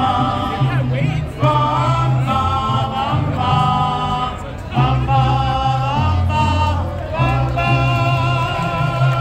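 Live band music: several voices singing in harmony over guitars, with a sousaphone playing a stepping bass line.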